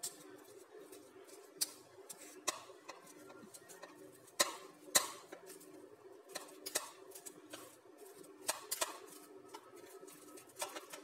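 A metal fork pressing and tapping against a plate while mashing bananas: irregular clicks and scrapes, the loudest about four and a half and five seconds in, over a faint steady hum.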